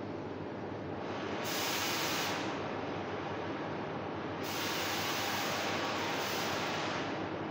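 Gas torch hissing over a steady background noise, its hiss surging louder twice: briefly about a second and a half in, then for a longer stretch from about halfway to near the end.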